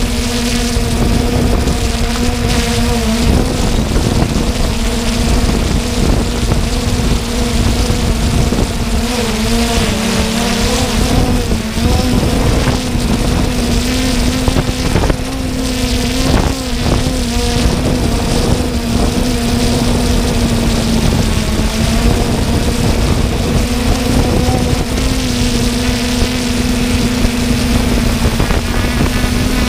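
Multirotor drone's propellers humming steadily, with the pitch wavering slightly as it manoeuvres, under a rush of wind over the microphone.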